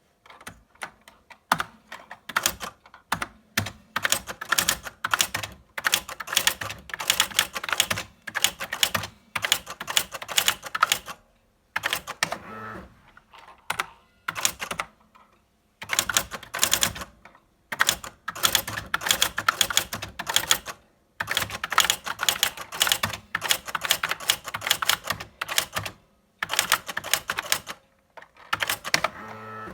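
Electronic typewriter typing: rapid runs of sharp mechanical clicks in stretches of a few seconds, with short pauses between them.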